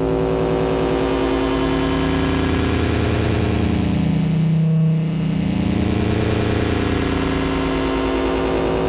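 Steady engine-like drone made of several held low tones, a spaceship-style flight sound effect, with a brief swirling sweep about halfway through.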